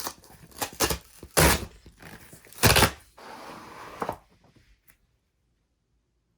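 Hands handling a boxed vinyl record: a few sharp knocks and thuds, then about a second of scraping rustle. The sound stops about five seconds in.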